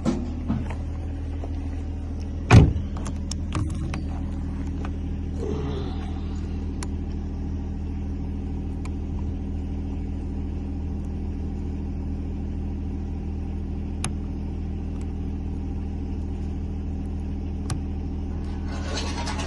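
A vehicle engine idling with a steady low hum, with a loud sharp knock about two and a half seconds in and a few lighter clicks and knocks around it, from work on a car door.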